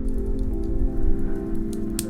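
Soft background music of long held notes, with a wood fire crackling over it: scattered sharp pops, the loudest near the end, over a low rumble.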